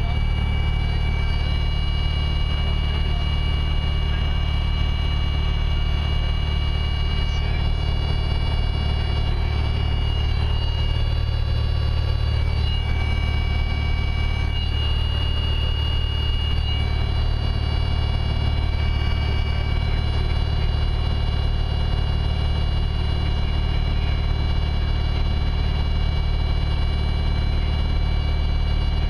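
Steady drone of a Cessna 172A's engine and propeller in flight, heard from inside the cabin, with thin steady high whines over the low rumble.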